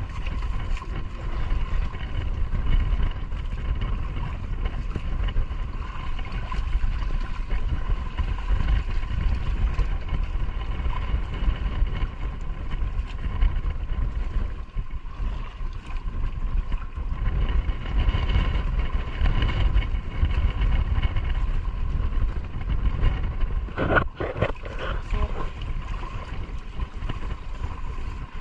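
A boat's engine idling steadily, with a continuous low rumble that rises and falls and a constant thin hum above it, under wind and water noise. A short pitched sound comes about three-quarters of the way through.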